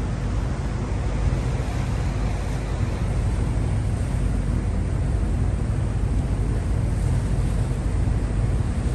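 Passenger ferry's engine running with a steady low drone, heard from the open deck, with wind noise on the microphone.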